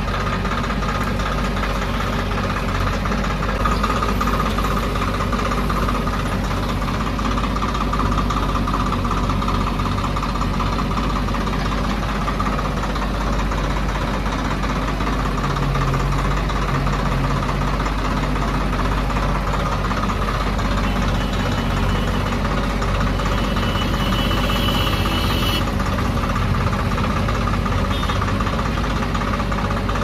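Diesel engines running steadily with a knocking clatter: a JCB 3DX backhoe loader working its arm and bucket as it loads mud into a tractor trolley, with the tractor's engine idling alongside.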